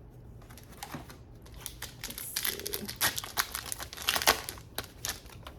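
Plastic trading-card booster pack wrapper crinkling and being torn open by hand, with irregular crackles that are loudest about three and four seconds in.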